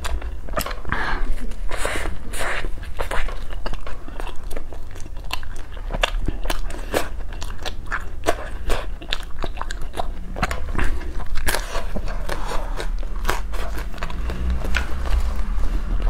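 Close-miked eating of ice cream and a crisp waffle cone: a quick run of crunching bites and chewing.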